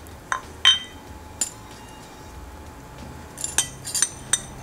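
Metal spoon clinking against a small ceramic dish while scooping ground black pepper: a few separate clinks in the first second and a half, then a quick run of clinks about three and a half seconds in.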